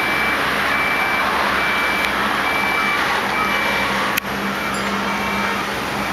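Vehicle warning beeper sounding a steady high electronic beep, about half a second on and half off, over the running and road noise of a moving vehicle. A sharp click about four seconds in.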